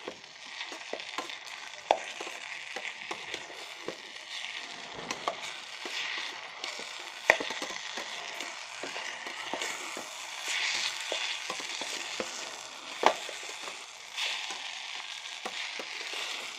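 Maggi noodles and masala sizzling as they fry in an electric kettle. The steady sizzle is broken by the clicks and scrapes of stirring, with sharper knocks about 2, 7 and 13 seconds in.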